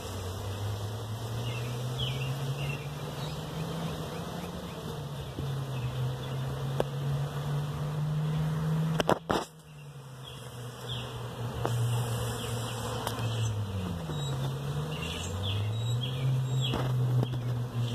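Honeybees buzzing in flight at the entrance of a very active hive, a steady hum whose pitch rises and falls as bees pass close. A single sharp knock about halfway through.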